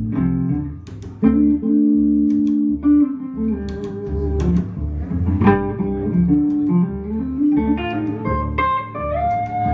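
Guitar playing an instrumental break, picking single melodic notes with a bend near the end, over plucked upright bass notes.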